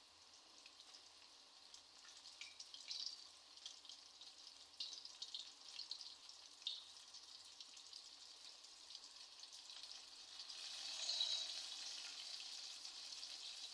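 Flour-coated chicken pieces frying in hot oil in a kadhai: a faint sizzle with irregular crackles, swelling into a fuller, steadier sizzle about ten seconds in.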